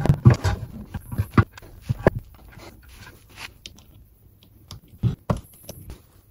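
Engine sump pan being offered up and fitted to the underside of the engine: irregular metal scrapes, knocks and clinks as it is positioned and the first bolts are started, busiest in the first couple of seconds, then a few scattered clicks.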